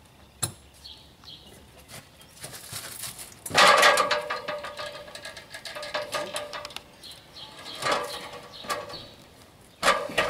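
A heavy 130 lb boat battery in its plastic case sliding and knocking down an aluminium extension ladder, the ladder ringing with a metallic tone at each contact. The loudest scrape and clang comes about three and a half seconds in, with smaller knocks near eight seconds and again near the end.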